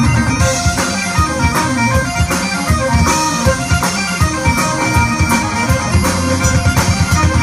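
Up-tempo folk-rock music with a steady drum beat under a melody line, playing as a soundtrack.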